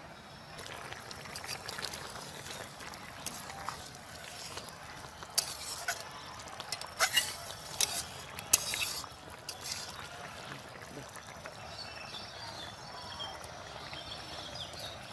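Eggplant and tomato curry simmering in a wok while a metal spatula stirs it, with a run of sharp clinks and scrapes against the pan in the middle.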